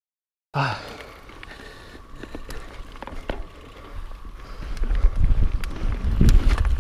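Mountain bike rolling off down a dirt trail: scattered clicks and rattles from the bike. A low rumble and wind buffeting a chest-mounted camera grow louder from about four seconds in as it gathers speed. The sound cuts in abruptly about half a second in, after silence.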